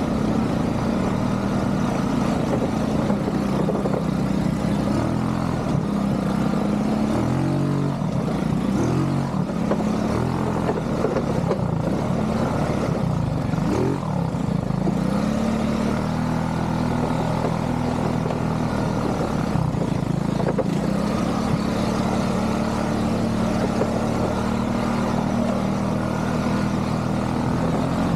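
ATV engine running under way, its revs dipping and rising several times in the first half, then holding steady.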